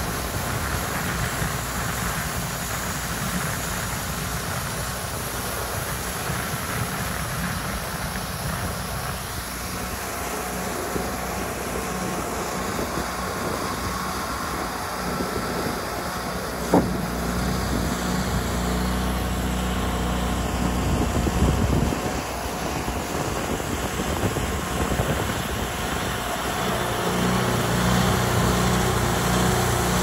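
Wood-Mizer LT40 portable sawmill's engine running steadily, with wind noise on the microphone. A single sharp knock sounds a little past halfway.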